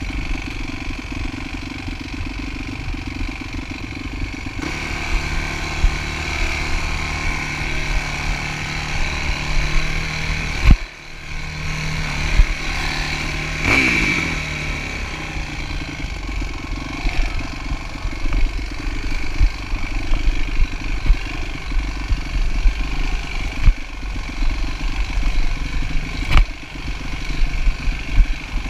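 Dirt bike engine running under varying throttle on a rocky trail. The note drops briefly about eleven seconds in, then climbs again. There are a few sharp knocks later on.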